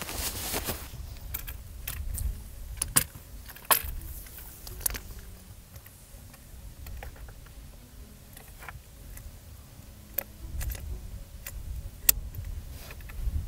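Clothing rustling and scattered sharp clicks and knocks of rifle and gear being handled against rock, over a low wind rumble.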